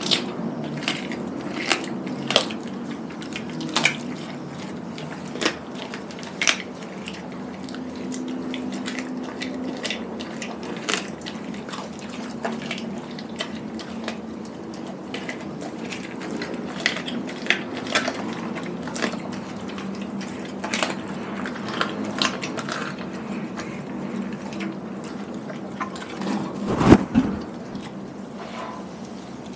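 Doberman chewing and tearing at a whole raw chicken: wet, slurping mouth sounds broken by many sharp cracks and clicks of bone and teeth, with one louder knock near the end.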